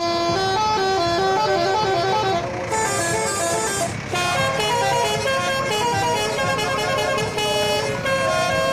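Mini tourist train's musical horn playing a quick tune of short notes stepping up and down one after another, with a brief hiss a little before the middle.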